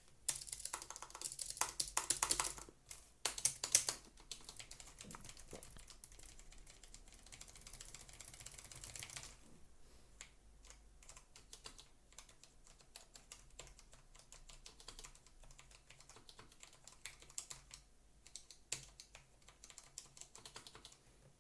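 Typing on a computer keyboard: a fast, loud run of keystrokes for about the first nine seconds, then a quieter, sparser patter of keystrokes with a few louder bursts near the end.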